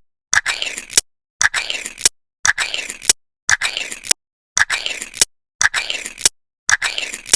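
A sharp click, a scraping rasp of about half a second and a second click, repeated about once a second, seven times, with dead silence between the repeats.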